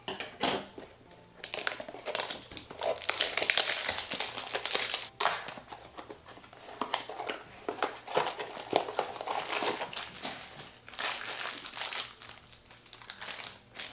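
Blind-bag packaging being opened by hand: irregular crinkling and rustling of the wrapper, loudest a few seconds in, as the mystery figure is taken out.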